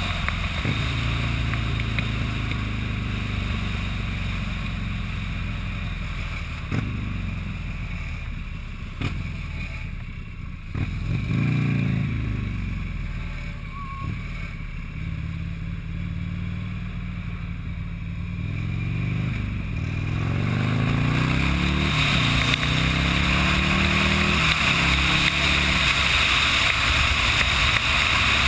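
Buell motorcycle engine on the move, slowing with falling pitch, then accelerating in rising steps through the gears from about two-thirds of the way in. Wind rushes over the microphone and becomes loud once up to speed near the end.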